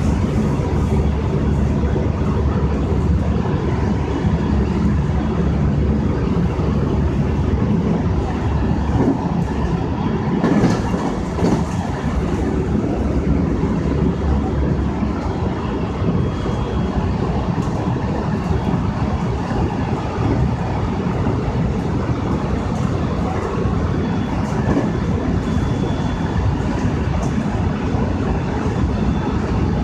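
JR West 223-1000 series electric train running at speed, heard from just behind the driver's cab: a steady, loud rumble of wheels and traction gear. Scattered clicks come from wheels passing over the rail, and a short louder rush comes about ten seconds in.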